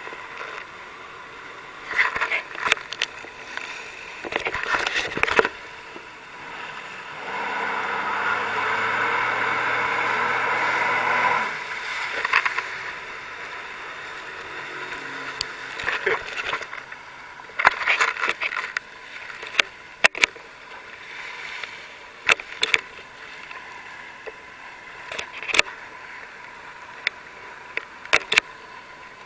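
A jet ski's engine passing close by, growing louder about a third of the way in, holding steady for a few seconds, then falling away. Water splashes and sharp knocks come and go over the hiss of choppy water.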